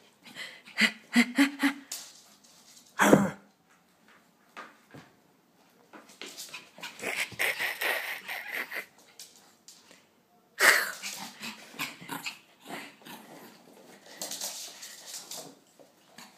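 Pekingese dog growling and breathing hard in irregular bursts as it whirls about. The loudest burst comes about three seconds in and another sharp one near eleven seconds.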